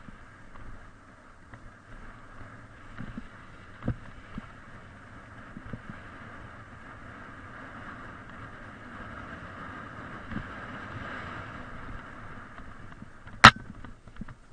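Steady hiss of wind and movement on a mounted camera going down a dirt forest trail, building toward the middle, with scattered knocks and one sharp, loud crack near the end.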